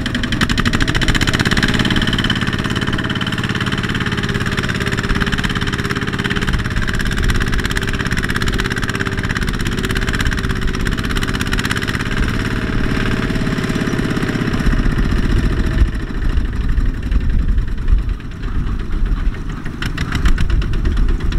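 Kubota walking tractor's single-cylinder diesel engine running under load as the tractor, bogged in mud, strains to pull free. About fifteen seconds in the sound turns uneven, with a heavier low chugging that rises and falls.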